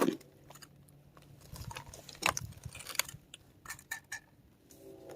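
Scattered small clicks and light rustles, a few sharper ones about two and three seconds in, as a recovered drone is handled and turned over for inspection.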